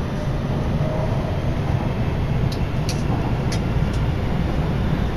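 Toei Mita Line subway train heard from inside the car while running through the tunnel: a steady low rumble of wheels on rails. A few brief high-pitched ticks come about halfway through.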